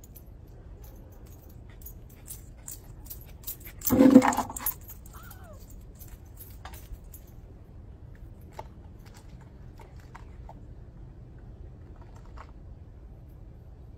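Metal jingling and clinking, loudest in one short burst about four seconds in, followed by a few scattered faint clicks.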